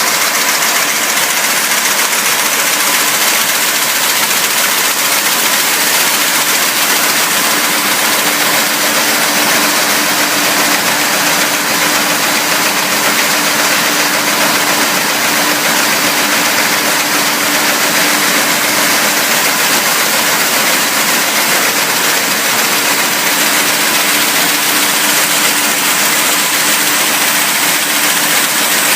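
Automatic can-body welding machine (450 cans a minute) running steadily: a loud, even mechanical noise with a faint hum underneath.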